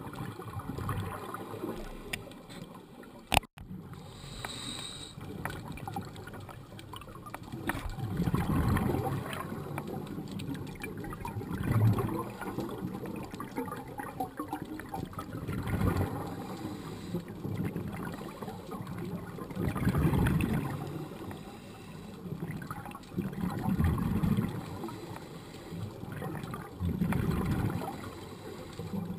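Scuba regulator exhaust bubbling and gurgling underwater, swelling roughly every four seconds with each exhaled breath over a steady low water wash. One sharp click about three and a half seconds in.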